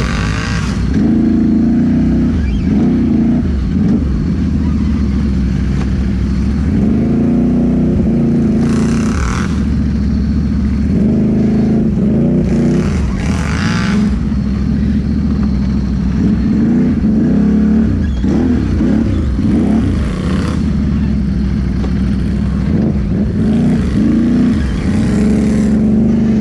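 Can-Am Renegade XMR 1000R ATV's V-twin engine revving up and falling back again and again as the quad churns through thick bog mud, with a few brief rushes of hiss.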